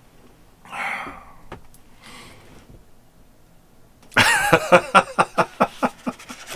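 A man laughs about four seconds in, a run of quick, loud pulses of voice. It is preceded by a soft breathy sound about a second in.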